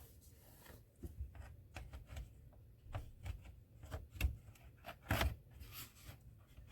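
Light clicks, taps and rustling of a picture being handled and fitted into a mounted frame, with a louder scrape about five seconds in.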